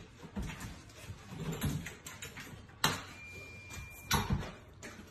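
A dog pawing at a kitchen sink and counter: scattered light knocks and clatter, with sharp clacks about three and four seconds in.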